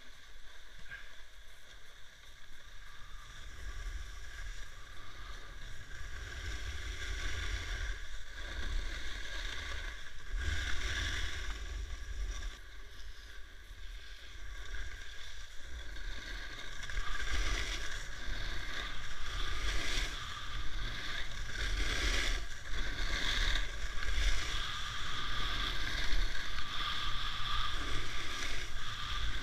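Skis carving turns down freshly groomed corduroy snow: a swishing scrape that swells and fades with each turn, louder and quicker in the second half, over a low rumble.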